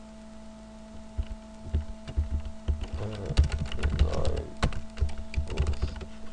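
Computer keyboard typing: a quick, irregular run of key clicks starting about a second in, over a steady electrical hum.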